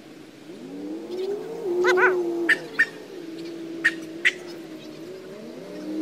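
A dog howling: one long, wavering howl that begins about half a second in, climbs to a higher, louder peak about two seconds in and fades out near five seconds, then starts again just before the end.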